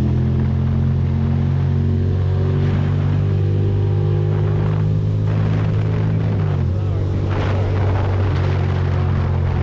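Ducati Monster's L-twin engine running steadily under way, heard from the rider's position with road and wind noise; its note dips briefly in pitch about six and a half seconds in.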